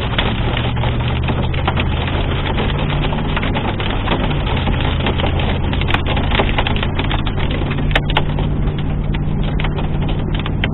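Hail and heavy rain pelting a car, a dense continuous clatter of sharp hailstone impacts over the hiss of rain, with the vehicle's steady low engine hum underneath. The impacts thin out a little in the second half.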